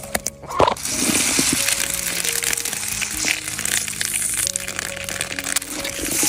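Background music of slow held notes, over a continuous wet crackling and squishing as a soft, spongy lump of coagulated rubber latex is pulled from its bowl and squeezed in gloved hands, with a louder squelch about half a second in.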